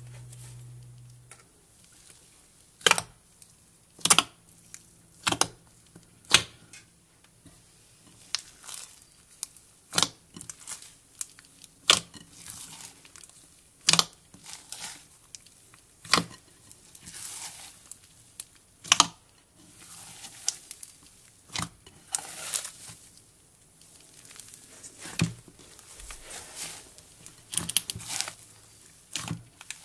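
Mixed cloud and jelly slime being stretched, pressed and folded by hand, giving irregular sharp pops and snaps as trapped air bursts, with softer crackling and tearing between them.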